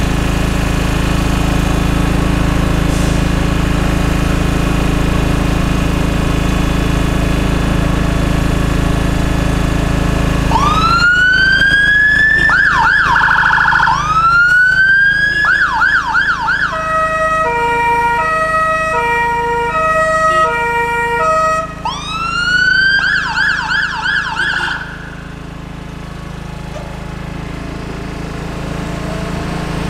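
A fire engine's diesel engine running steadily, then about ten seconds in its electronic siren rises in a wail and breaks into a fast yelp, twice over. Two-tone air horns follow for about four seconds, alternating a high and a low note, then one more wail into yelp that cuts off, leaving the engine running near the end.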